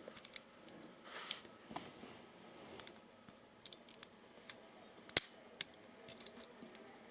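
Faint, scattered small metallic clicks and light rattling from a Gerber Flick multi-tool being worked by hand. Its sliding pliers are jammed from being pushed in before the handles were fully closed. The sharpest click comes about five seconds in.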